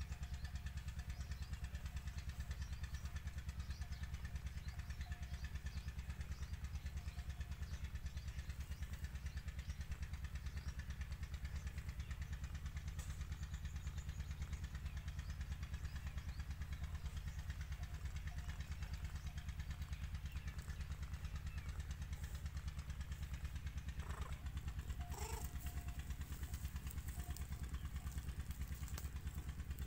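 Mother cat purring steadily close up, a fast, even, low rumble. A brief faint squeak comes near the end.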